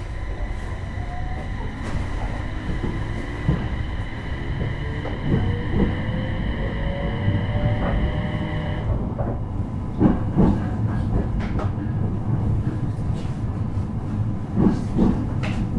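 JR East E721 series electric train heard from inside a motor car while running: the VVVF inverter and traction motor whine rises in pitch as the train picks up speed, over a steady running rumble. The higher inverter tones cut off suddenly about nine seconds in. Wheels then knock over rail joints in pairs, twice.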